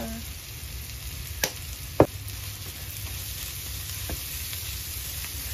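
Fried rice with egg and mixed vegetables sizzling steadily in a nonstick frying pan over a gas burner while a spatula stirs it. A couple of sharp knocks come about one and a half and two seconds in, the second the loudest, and a lighter one near four seconds.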